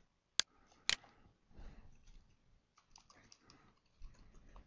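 Two sharp clicks, then faint, irregular typing on a computer keyboard.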